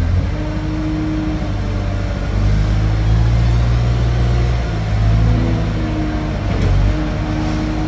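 Komatsu WA200 wheel loader's diesel engine running under load as the machine raises its bucket, the engine note swelling twice, with a higher steady tone coming and going over it.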